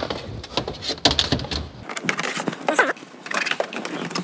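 Irregular clicks, knocks and light rattles of parts and hand tools being handled during hands-on assembly work. The background hum cuts off abruptly about two seconds in.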